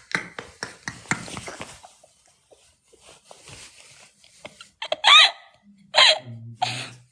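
Hard, helpless laughter: a quick run of short bursts, a quieter stretch, then two high squealing bursts near the end.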